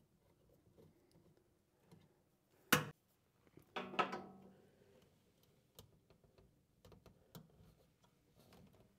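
Faint clicks and taps of a wire being worked into a screw terminal on a relay terminal block, with one sharp click a little under three seconds in and a second knock about a second later that rings briefly.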